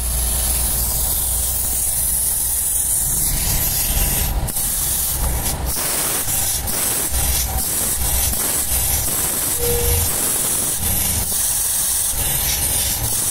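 Steady, loud hissing noise with a low rumble underneath, broken by a few short knocks about four to six seconds in.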